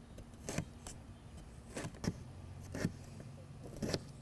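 Chef's knife chopping a jalapeño pepper on a plastic cutting board: about five separate knocks of the blade on the board, unevenly spaced.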